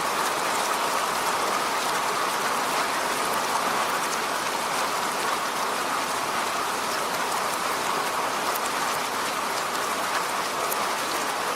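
Steady rain falling on a road: an even hiss with a few sharper drop ticks now and then.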